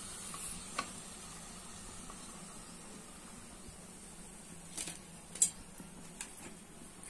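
Hot oil sizzling faintly in a kadhai as deep-fried gujiyas are lifted out with a slotted spoon, with a few sharp clicks, the loudest about five and a half seconds in.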